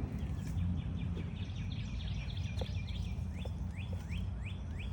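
A bird chirping: short, sharp calls repeated a few times a second, crowding into a fast run in the middle, over a steady low rumble.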